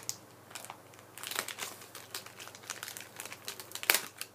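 Craft kit packaging crinkling and rustling as it is handled, an irregular run of crackles with the loudest one a little before the end.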